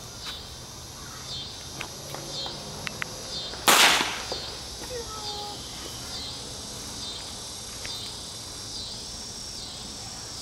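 One sharp firework pop about four seconds in, the loudest sound, with a few faint clicks before it. Underneath, a steady chorus of insects pulses in a regular rhythm.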